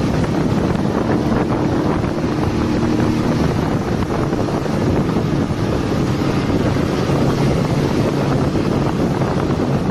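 Wind buffeting the microphone of a moving motorcycle, over the steady running of its engine at cruising speed.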